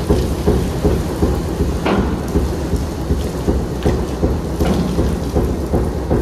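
Kobelco gyratory cone crusher crushing hard iron ore: a steady low rumble with frequent sharp knocks and clatter of rock on rock.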